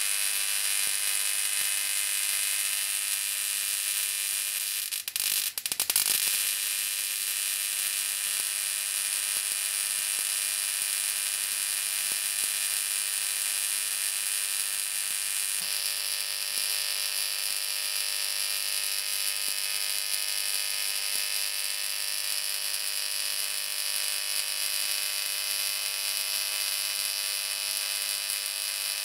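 High-voltage electric arcs across magnesium shavings, a steady harsh buzzing hiss. It breaks up briefly about five seconds in, and its tone shifts slightly about halfway through.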